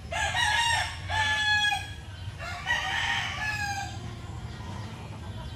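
A rooster crowing once: a loud cock-a-doodle-doo in three parts, the last part drawn out and falling in pitch.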